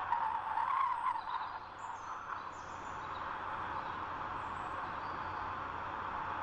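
Steady wind noise, a little stronger in the first second or so, with a few faint high bird chirps over the first few seconds.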